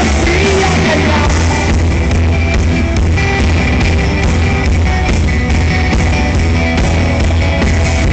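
Rock band playing loudly live, with a sung phrase trailing off about a second in, then instrumental playing with a steady drum beat.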